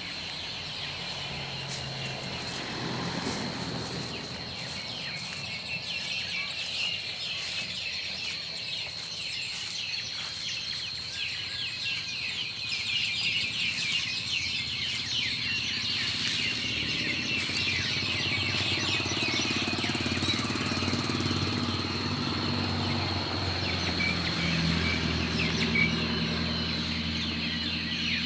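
Many birds chirping and chattering at once, a dense evening roosting chorus of short overlapping calls, with a steady thin high tone. A low motor hum grows louder in the second half.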